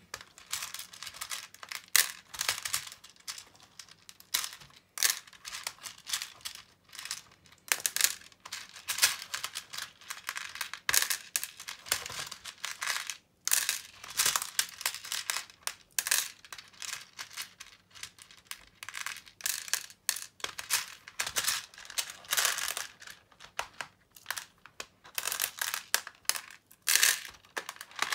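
Small transparent plastic pony beads clicking and rattling as fingers rake them across a plastic organizer lid and drop them into the box's plastic compartments. The light clicks come in a dense, irregular run with a few brief pauses.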